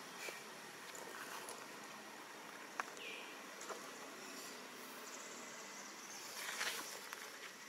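Steady outdoor background hiss with a few faint clicks, a short falling chirp about three seconds in, and a brief rustling burst near the end.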